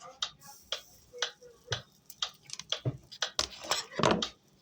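A string of short, sharp clicks and taps, a few a second and unevenly spaced, growing busier in the second half.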